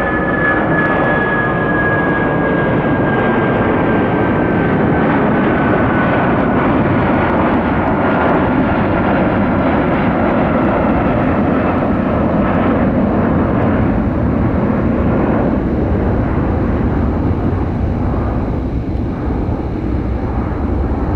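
Airliner's engines running loud as it passes on the runway: a steady rush with a high whine that slowly falls in pitch over the first dozen seconds, easing a little near the end.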